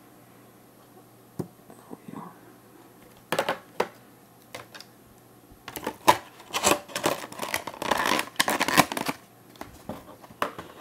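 Clear plastic packaging being pulled off and handled, crinkling and rustling. A few scattered light clicks come first, then about three seconds of dense crackling past the middle.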